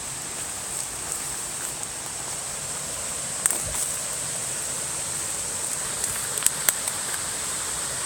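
Steady rush of a stream and waterfall, with a few sharp clicks of footsteps on the trail about three and a half seconds in and again near the end.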